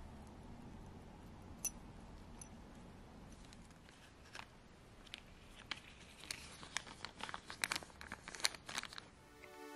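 Hands handling small watch parts: soft crinkling and rubbing with a scatter of small sharp clicks and taps, a few at first and busiest over the last three seconds.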